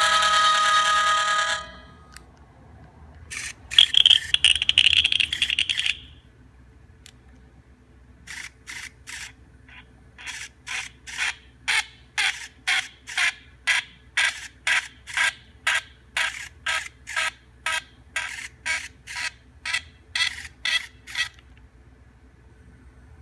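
Nokia 3220 mobile phone: a ringtone's last notes stop about a second and a half in. A few clicks and a brief high tone follow, then a long run of short, evenly spaced buzzy pulses, about two a second.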